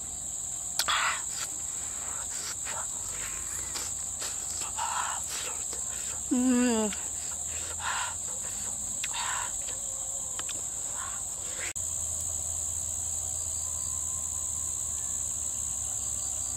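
Night insects trilling steadily in one continuous high tone. A person's voice gives a short falling hum about six seconds in, with scattered light clicks in the first half.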